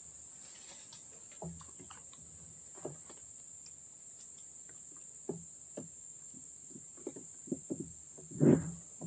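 Scattered knocks and thumps of someone moving about and handling gear in a small open boat, sparse at first, then several a second near the end, loudest about eight and a half seconds in.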